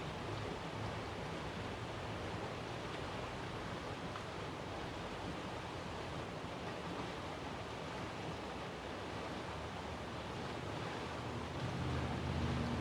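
Steady outdoor background noise, an even hiss with no siren tone in it. Near the end a low steady hum joins in.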